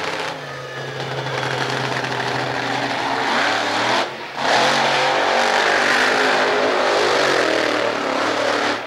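Monster truck engines running hard at full throttle as the trucks race. The sound breaks off briefly about four seconds in and comes back louder.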